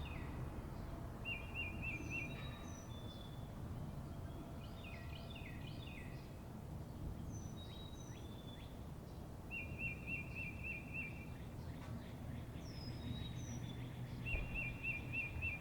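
Several songbirds singing and calling. One repeats a short, quick trill three times, over a faint steady low hum.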